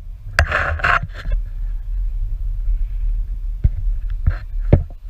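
Wind buffeting a small camera's microphone at the top of a sailboat mast: a steady low rumble, a rush of noise about half a second in, and a few sharp knocks near the end.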